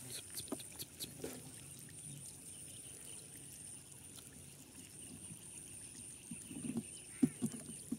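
Faint water trickling and splashing, with a few light knocks and clicks about a second in and again near the end.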